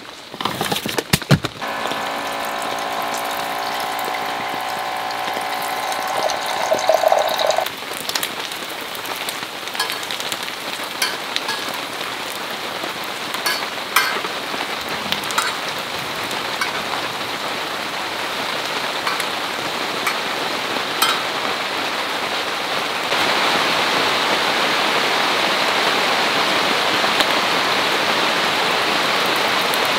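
Steady rain falling, a continuous hiss with scattered drop ticks. A few sharp clicks come near the start, and a humming tone runs for several seconds early on. The rain noise steps up and grows louder about three-quarters of the way through.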